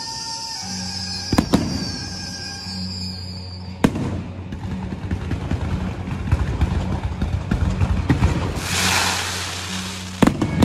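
Fireworks display: sharp bangs about a second and a half in, just under four seconds in and near the end, with dense crackling of bursting shells between them and a rushing hiss about nine seconds in.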